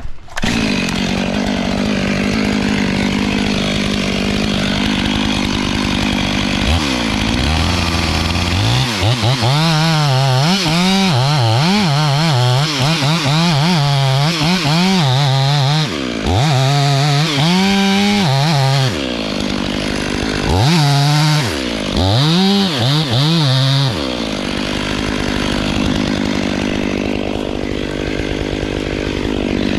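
Chainsaw running at full throttle, cutting into a dead white oak trunk. Its engine pitch sags and recovers over and over under load, with short dips where the throttle is let off, and it runs steadier near the end.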